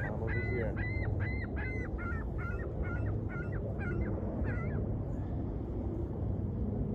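Geese honking in a rapid series, about three calls a second, fading out about five seconds in, over a steady low rumble.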